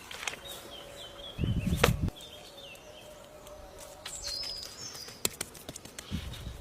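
Birds chirping in short wavering calls, with scattered sharp clicks and a brief low rumble about a second and a half in and again near the end.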